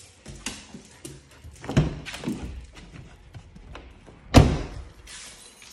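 Ram 1500 pickup truck door: a few clicks and knocks from the handle and latch, then the door shutting with a solid thunk about four seconds in.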